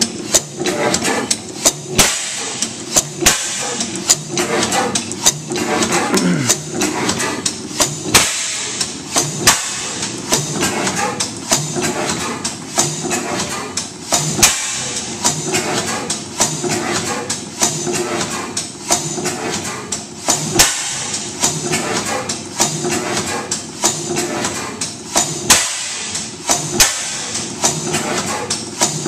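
15 HP St. Mary's sideshaft hit-and-miss gas engine running, with a fast, constant mechanical clicking and clanking from its mechanical valve gear and drop-cam igniter. A louder bang comes every few seconds, at uneven gaps, as the engine fires and then coasts.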